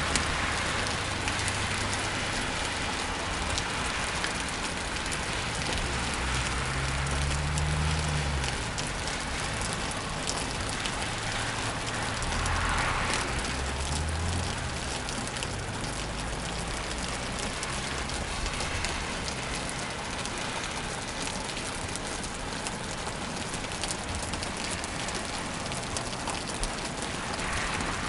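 Rain falling steadily on a car, a dense patter of drops ticking on its surface. A low rumble swells and fades twice, about a quarter and about halfway through.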